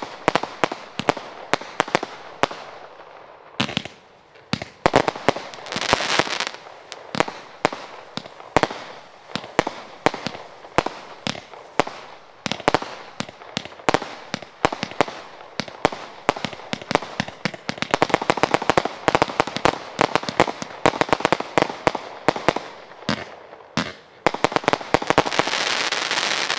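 Star Shooters Gray Wolf display box, a 120-shot fireworks cake, firing a rapid string of sharp shots and bursts. Dense crackling comes briefly about six seconds in and again from about eighteen seconds on, and the barrage stops abruptly at the end.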